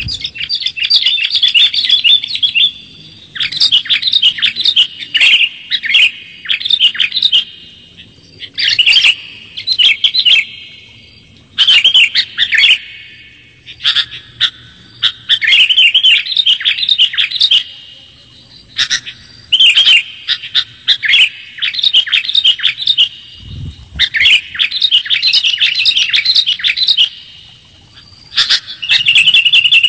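Sooty-headed bulbul (kutilang) singing: short bubbly, whistled phrases repeated every second or two with brief pauses, and scattered sharp clicks between them.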